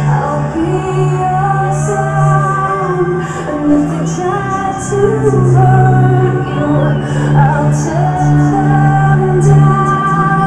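Trance dance music from a DJ set played loud over a nightclub sound system: a sung vocal line gliding over a steady heavy bass, with regular high cymbal strokes.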